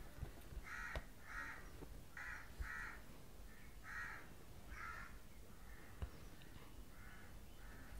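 A crow cawing, short calls mostly in pairs, repeated every second or two. A few sharp clicks come in between.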